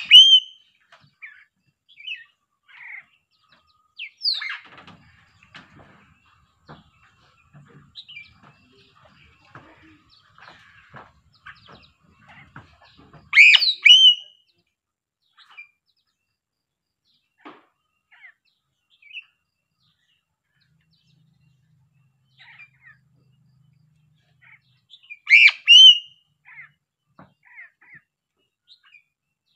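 Sulawesi crow (piping crow) calling: three loud bursts of two quick sliding calls each, near the start, about halfway through and near the end. Soft short chirps and clicks fill the gaps between them.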